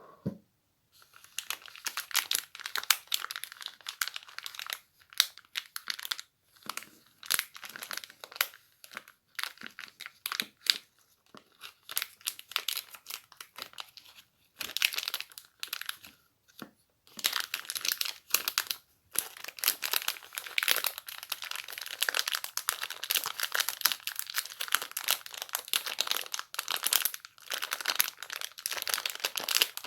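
Close-up crinkling and rustling of a crumpled material handled for ASMR, coming in irregular bursts with short pauses and running more continuously in the second half.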